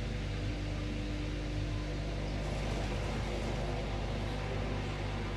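Samsung WF-R1062 front-loading washing machine running: a steady low hum with an even hiss over it.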